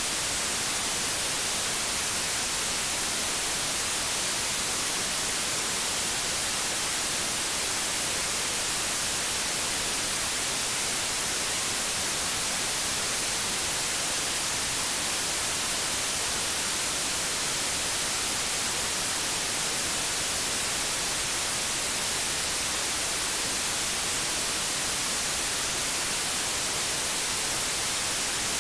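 Steady white noise: an even, unchanging hiss, strongest in the high end.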